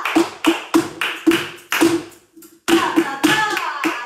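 Flamenco footwork: the heels and toes of flamenco shoes strike a wooden floor in a quick bulería rhythm. The strikes stop for about half a second a little after two seconds in, then start again.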